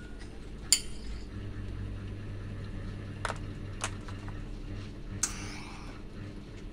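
Stainless-steel rod being TIG welded: a low steady hum that strengthens for a few seconds, with four sharp metallic clicks. The loudest click comes under a second in, and the last, about five seconds in, rings briefly.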